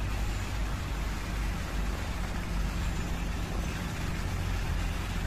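Steady outdoor background noise: an even hiss over a low rumble, with no distinct event.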